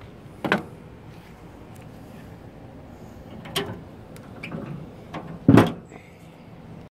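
Metal clanks from handling barbecue tongs at a charcoal grill, then the grill's metal lid banging shut about five and a half seconds in, the loudest knock.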